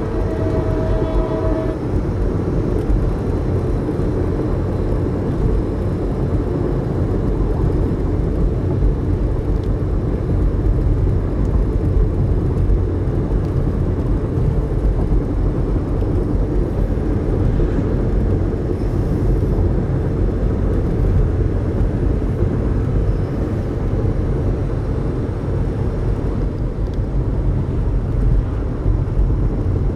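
Diesel freight locomotive's multi-chime air horn sounding and cutting off about two seconds in, then the steady rumble of a freight train rolling past.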